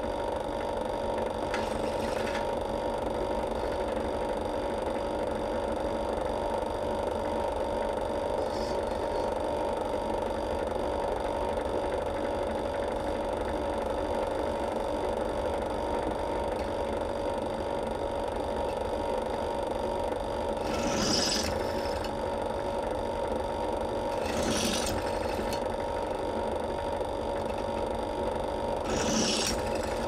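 Bench drill press running with a steady motor hum. Short scraping hisses come once early and three times near the end as the bit cuts into a metal strip.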